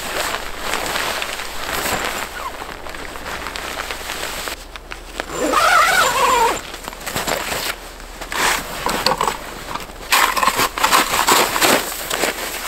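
Heavy canvas tent fabric rustling and dragging over snow as it is spread and pulled into place, with a short wavering squeak about halfway through. Near the end, a run of irregular crunches as snow is packed and scraped along the tent's edge under boots.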